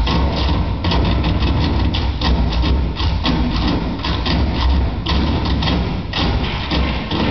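Tap shoes striking a wooden stage in a fast, continuous flurry of sharp clicks, with low thuds underneath, in an unaccompanied tap-dance routine.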